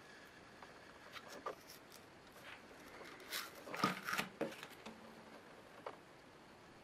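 A clear plastic packaging bag crinkling and rustling as it is picked up and handled, with a few light clicks and taps. The handling is busiest about halfway through.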